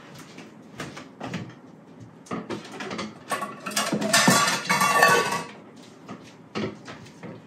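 Dishes and bowls clattering and knocking while a mixing bowl is dug out, scattered knocks at first and then a louder stretch of clatter and ringing near the middle.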